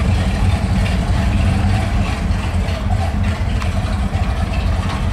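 Offshore powerboat's engines idling in gear at dead slow, a low, steady rumble.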